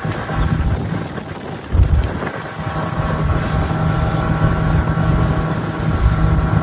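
Motorboat engine running at a steady pitch, with wind gusting hard against the microphone.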